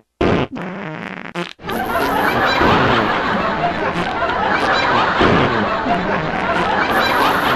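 A few short fart-like blasts, then many people laughing and chattering at once, from a little under two seconds in.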